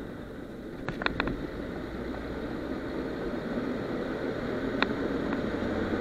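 Diesel engine of an old Škoda 706 truck running steadily under way, heard from inside the cab, with a few short clinks of loose cab fittings: a cluster about a second in and more near the end.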